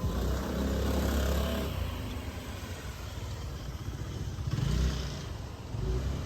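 Low rumble of road traffic, with a vehicle passing and swelling louder about two-thirds of the way through.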